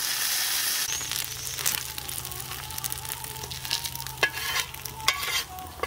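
Quail frying in a pan of oil: a loud, steady sizzle that drops about a second in to a quieter crackle with scattered pops.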